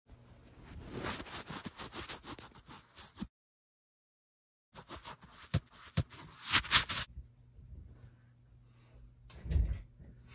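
Handling noise from a camera being set up: rubbing, rustling and knocks on the microphone. The sound drops out completely for about a second and a half in the middle, then the handling resumes. After that a faint steady hum is left, with a single low thump near the end.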